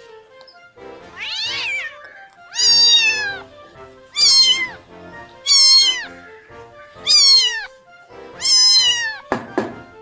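A cat meowing over and over: six high meows about a second and a half apart, each falling in pitch, followed by a few sharp knocks just before the end.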